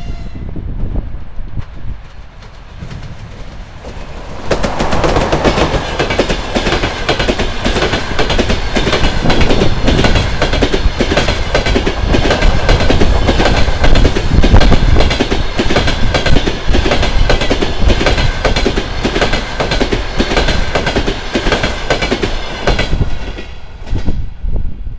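EP20 electric locomotive and its passenger coaches passing at speed close by. A loud rush begins about four seconds in, then a rapid, rhythmic clatter of wheels over the rails runs under a steady high tone, and it falls away near the end as the last coach goes by.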